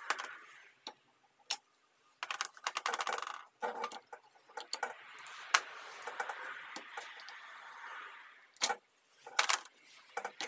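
Old solenoids being worked out of a ZF6HP28 automatic transmission valve body by hand: sharp plastic-and-metal clicks and ticks, with a fast rattling run of clicks a couple of seconds in and a soft scuffing in the middle.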